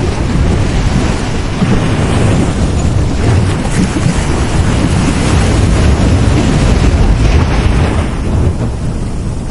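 Sea waves breaking and washing on a beach, a loud continuous surge with a deep low rumble, swelling and easing over a few seconds, with wind buffeting the microphone.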